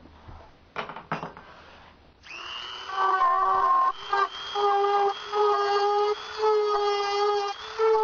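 Two light knocks, then about two seconds in a Dremel rotary tool spins up into a loud, high, steady whine. It dips in level several times as it routs the wood of the door jamb to cut the recess for the strike plate.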